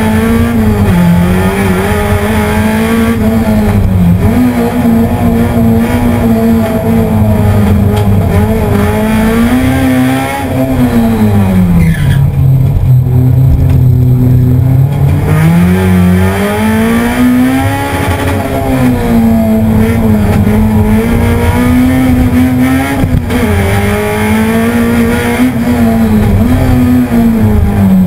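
Race car engine heard from inside the cabin, pulling hard and revving up and down repeatedly as the car is driven flat out around a circuit. About halfway through, the revs drop and stay low for a few seconds, then climb again.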